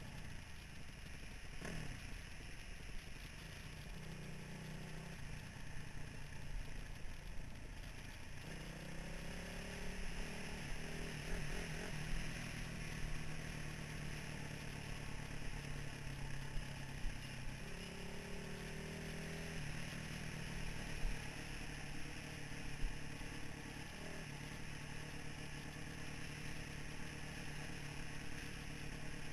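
2003 Honda CRF450R dirt bike's single-cylinder four-stroke engine running at a steady trail-riding pace, with the engine note rising about eight seconds in and shifting again briefly a little past halfway, over a constant rush of wind and tyre noise with small clatters from the gravel.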